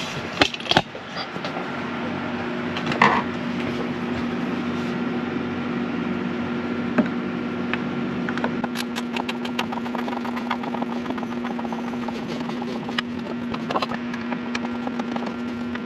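Steady hum of an electric box fan running, with scattered light clicks and taps as the plastic hinge clips of a hatch fly screen are handled and worked loose.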